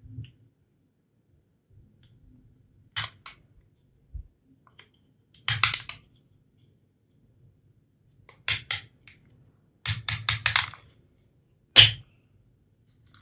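Snap-off utility knife cutting into a hard plastic bottle cap: short, sharp cracking scrapes in about six separate bursts with pauses between. The loudest is a single crack near the end.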